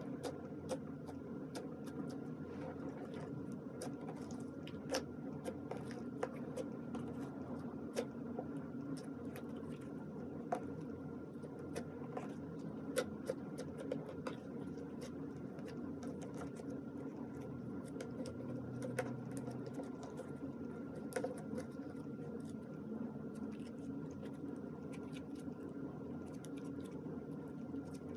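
Slime being kneaded and mixed by hand, giving irregular sticky clicks and pops over a steady low hum.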